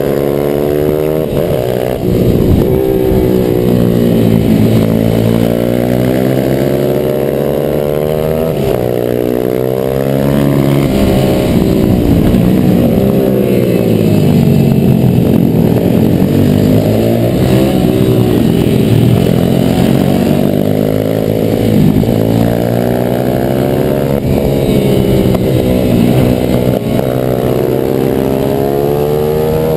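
Pit bike's single-cylinder four-stroke engine ridden hard, revs repeatedly climbing and dropping through gear changes and corners, with brief dips in pitch as the throttle is shut.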